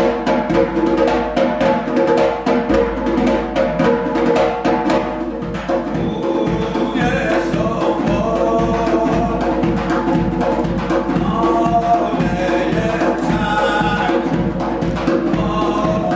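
Zurkhaneh music: a zarb goblet drum beaten in a fast, steady rhythm, joined from about six seconds in by a man's chanting voice, with the drum carrying on beneath it.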